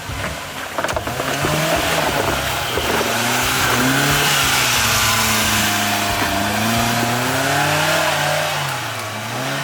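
Off-road 4x4's engine revving up and down several times under load, over a rushing noise.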